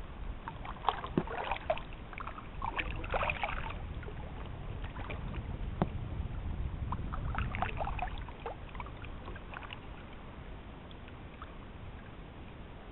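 Kayak paddling on a river: water splashing and dripping off the paddle blades in two spells, from about one to four seconds in and again from about six to nine seconds in, over a low steady rumble. A single sharp knock about six seconds in.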